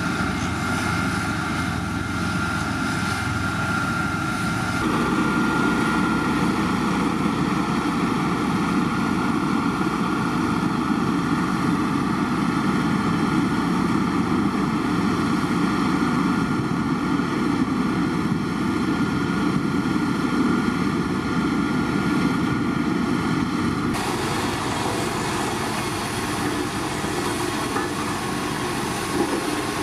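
Diesel engines of single-drum road rollers running steadily as they work over a loose gravel road bed. The drone changes abruptly about five seconds in and again near the end.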